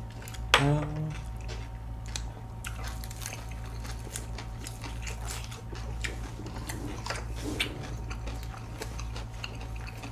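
Close-up chewing of a big mouthful of lettuce wrap filled with pork bulgogi and rice, heard as many short clicks and smacks. There is a brief 'mm' from the voice about half a second in.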